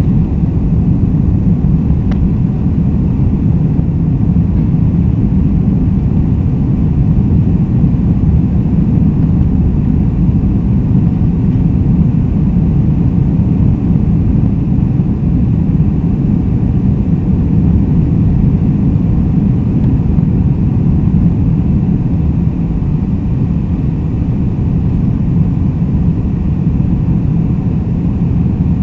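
Steady low rumble of a Boeing 747-400 jetliner's engines, with a few faint steady tones higher up.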